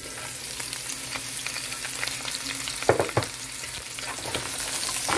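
Chopped red onion dropped into hot avocado oil with browned chicken pieces, sizzling steadily and growing louder toward the end. A couple of sharp knocks come about three seconds in.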